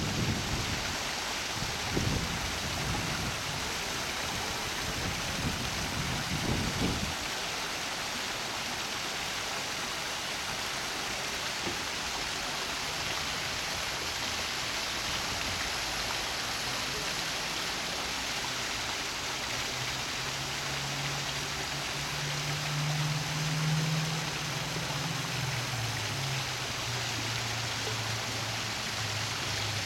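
Steady rush of running water as a constant hiss, with low gusts of wind buffeting the microphone in the first few seconds and a low steady hum joining in past the midpoint.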